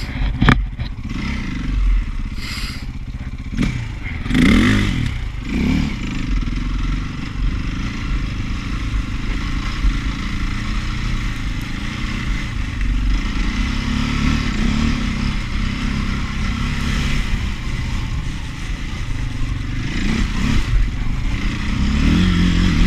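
KTM 530 EXC dirt bike's single-cylinder four-stroke engine running under way, revving up twice in the first six seconds and then holding a steadier pace, rising again near the end. A couple of sharp knocks and clatter from the bike over rough ground come in the first few seconds.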